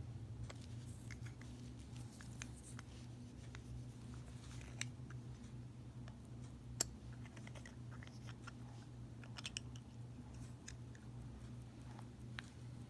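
Scattered small clicks and taps of a wristwatch and its unscrewed case back being handled at a watch bench, over a steady low hum. One sharper click comes about seven seconds in, with a quick run of clicks a couple of seconds later.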